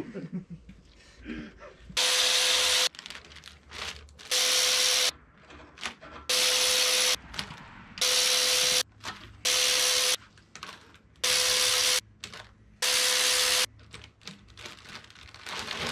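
Power impact wrench run in seven short bursts of just under a second each, with a steady whine, as it works fasteners loose on a 5.3 LS engine.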